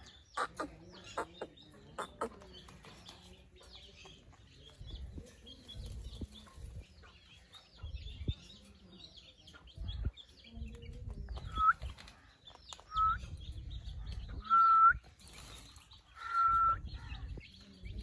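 Alexandrine parakeet calling four times in the second half, clear single-pitched calls that grow longer each time, over steady chirping of small birds in the background.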